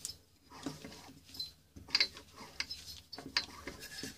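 26cc four-stroke overhead-valve string-trimmer engine turned over by hand, its valve train and internals working with irregular mechanical clicks and clacks, the loudest about two seconds in and again about three and a half seconds in.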